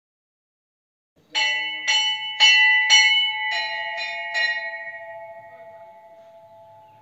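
A metal bell struck seven times in quick succession, about two strikes a second. A lower note joins on the last three, and the ringing fades slowly away.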